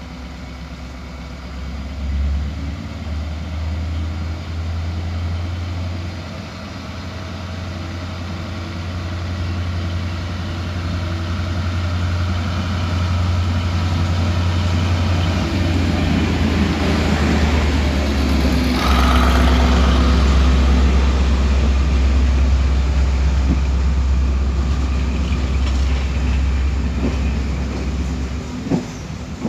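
GBRf Class 73 electro-diesel locomotives running on their diesel engines as they approach and pass close by, a deep steady engine note growing louder. The test-train coaches rolling past add running noise, loudest about two-thirds of the way through.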